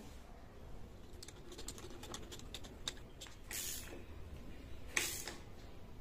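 Small socket ratchet wrench clicking in quick runs as the bolt holding the left crank arm onto the bottom-bracket axle is tightened, with two louder brief scraping noises about three and a half and five seconds in.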